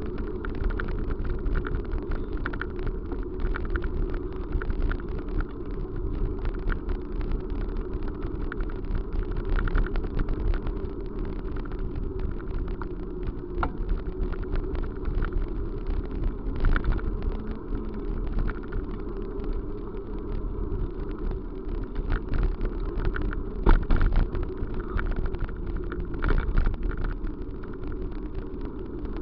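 Steady rumble of a moving vehicle, with many short clicks and knocks scattered throughout.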